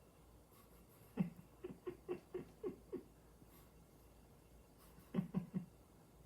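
A quick run of short, pitched vocal huffs, about seven in two seconds, then three more in quick succession near the end.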